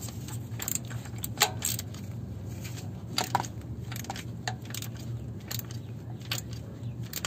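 Irregular metallic clicks and clinks of a socket wrench as it turns a new oil pressure switch the last turn into the engine block, over a steady low hum.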